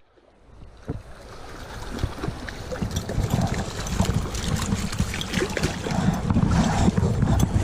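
Water splashing and sloshing with wind rumbling on the microphone, fading in over the first two seconds and then holding steady.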